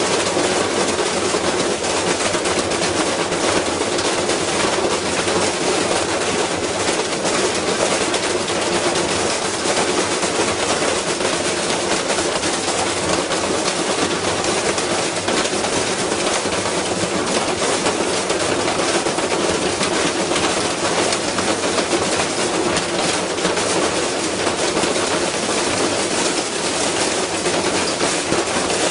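Front-loading washing machine running with a heavy unbalanced load in its drum, shaking violently on a wooden pallet and clattering and banging continuously. It is the sign of a badly unbalanced drum hammering the machine apart.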